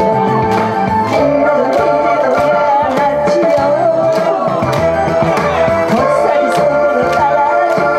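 Korean trot music from a backing track, with a steady drum beat of about two strokes a second under a held melody line.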